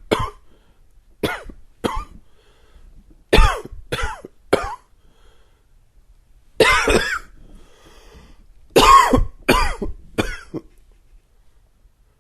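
A man's dry, wheezy coughing in short fits: single coughs, then a pair, then three, one longer cough about seven seconds in, and a closing fit of four.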